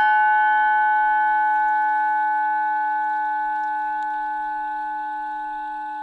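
Tibetan singing bowl tuned to 852 Hz, struck just before and now ringing on, its main tone and several higher overtones fading slowly. The low hum of an earlier, deeper bowl lingers faintly beneath it.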